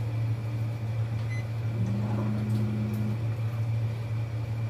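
Steady low electric hum of a running kitchen appliance.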